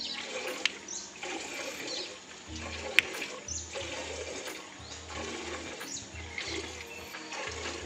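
Milk squirting from a water buffalo's teats into a steel pail during hand milking, squirt after squirt in a steady rhythm of roughly two a second. A single sharp click about three seconds in.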